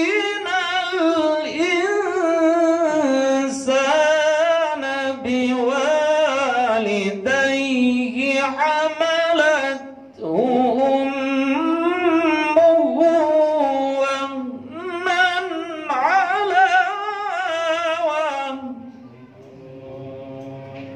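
A man reciting the Quran in the melodic, ornamented tilawah style, with long wavering held notes and one short pause for breath midway; the phrase ends a couple of seconds before the end, leaving only a faint tail.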